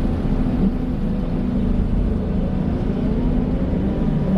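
An excavator's diesel engine running steadily with a low drone, a faint rising whine coming in during the second half.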